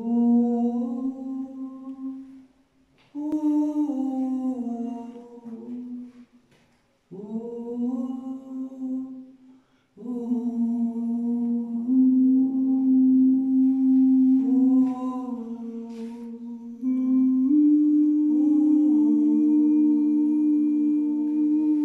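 Unaccompanied singing in slow phrases of long held notes, broken by short pauses in the first ten seconds. Near the end a steady held note sounds beneath a moving melody line.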